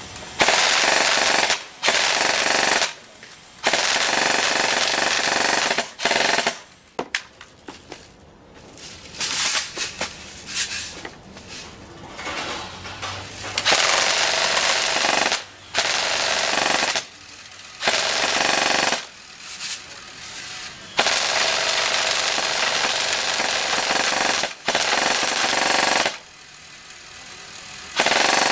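Echo1 Stag Arms full-metal M4 airsoft electric gun (AEG) firing full-auto bursts. The bursts are about eight, each one to three seconds long, with short pauses. Around the middle there is a stretch of quieter, scattered sound.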